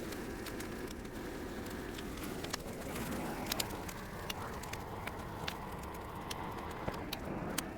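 A torch flame running steadily against a pile of brush, with scattered sharp crackles and pops from the brush as it starts to catch.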